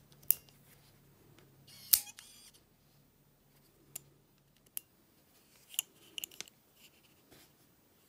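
Fingers handling a fingerprint padlock and pressing its sensor: scattered sharp clicks and taps, the loudest about two seconds in, with a quick cluster of clicks near the end.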